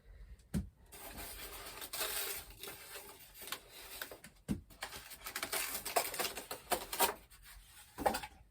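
A cardboard product box and its packaging being opened and handled by hand: irregular rubbing and scraping, with a few sharp knocks and clicks.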